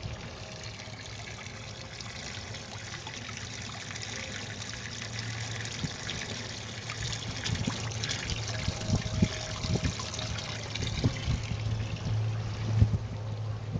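Water splashing and trickling, getting louder about five seconds in, over a low steady hum.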